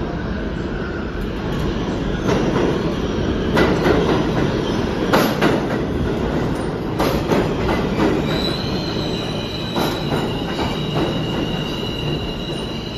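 Subway train running along the station platform: a loud rumble with sharp knocks from the wheels every second or so. About eight seconds in, a steady high-pitched squeal sets in and holds.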